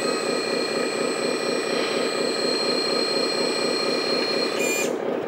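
Electric hydraulic pump of a LESU 1/14 RC dump truck running as the dump bed is lowered: a steady high whine over a low, evenly repeating buzz. The whine cuts off near the end.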